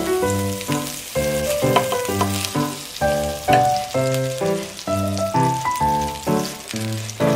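Butter sizzling and crackling as it melts in a hot nonstick frying pan. Louder background music plays over it, a melody of short separate notes.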